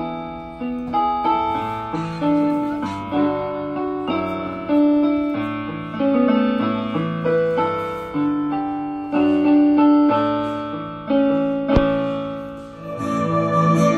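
Joy JK-87DT electronic keyboard played on its piano voice: chords and a melody, the notes struck about once or twice a second and left to fade. One sharp click sounds near the end.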